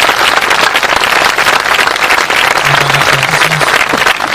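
Audience applauding as a havanera song ends: dense, steady clapping from many hands.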